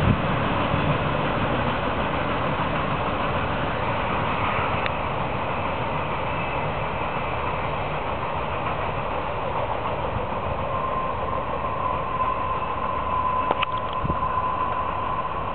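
Norfolk Southern trailer-on-flatcar intermodal train rolling away down the line: a steady rumble of wheels on rail that eases slightly as the train recedes. A thin steady high tone comes in after about ten seconds.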